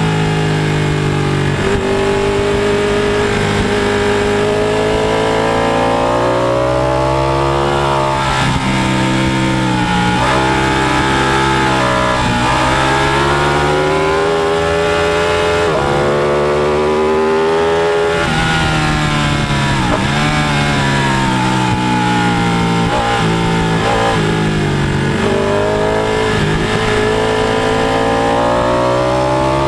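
Sport motorcycle's engine at high revs on a race track, its pitch climbing as it accelerates and dropping sharply again and again at gear changes and when slowing for corners.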